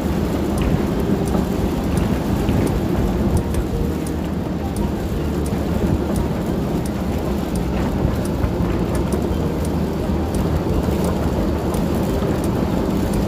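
A steady torrent of carrots pouring off the carrot harvester's elevator and clattering into a steel tipper bin, a dense rain-like rattle, over the steady hum of the harvester's machinery running.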